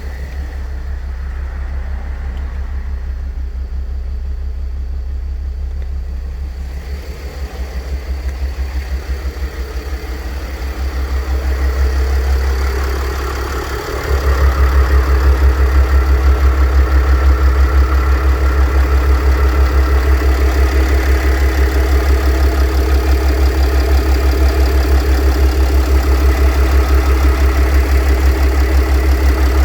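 Mercedes OM642 3.0 V6 diesel idling with the noise of a worn A/C compressor bearing, a fault that replacing the bearing cures. The sound is steady and grows louder and fuller about halfway through.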